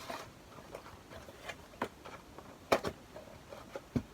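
Light clicks and taps from cosmetic packaging and a cardboard advent-calendar box being handled, with the sharpest click nearly three seconds in and a few more near the end.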